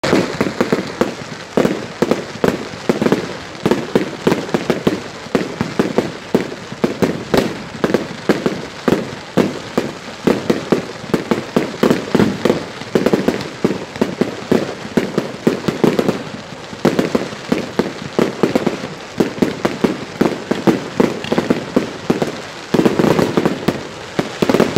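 Firework display: a continuous barrage of bangs and crackles from aerial fireworks bursting, several every second.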